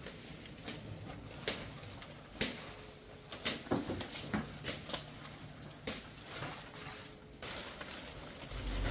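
Scattered sharp snaps and crackles of leaves, stems and twigs being handled and broken by hand, thickest in the middle, over a quiet forest background.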